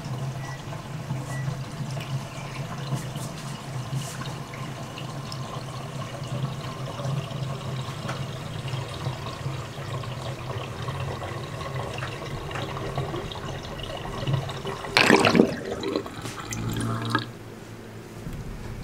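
Water draining out of a bathroom sink through a new pop-up drain, running steadily: it drains freely now the drain set has been changed. About fifteen seconds in comes a short, much louder gurgle as the basin empties, then it goes quieter.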